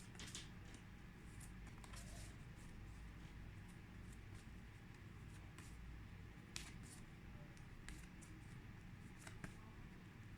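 Near silence: faint steady room hum with a few soft, scattered clicks, the loudest about six and a half seconds in.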